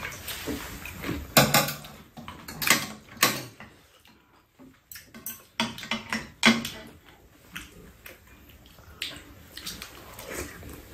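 Spoons and chopsticks clinking and scraping against ceramic bowls and a metal tray, with short eating noises, as two people eat rice cake soup. The clinks come scattered and irregular, with a quieter stretch a little before the middle.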